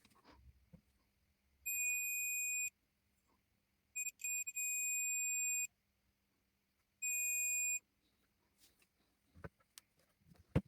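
Electronic beeper sounding a steady high-pitched tone three times: about a second, then about a second and a half, breaking up into short blips at its start, then just under a second.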